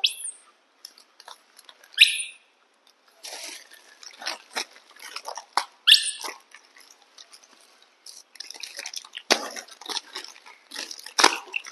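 Baby macaques giving short high-pitched squeaks, three of them, over the crinkling and rustling of plastic snack wrappers being handled and opened.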